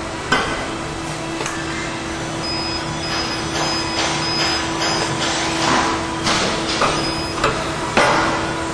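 CNC structural-steel beam drill line drilling 13/16-inch holes through the web of a steel beam: a steady hum from the drill spindle with several sharp clanks and knocks.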